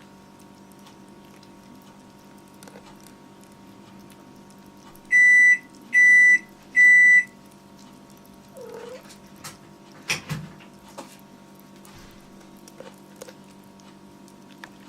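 Three loud electronic beeps about a second apart, followed by a kitten's brief, quieter mews, over a steady low hum.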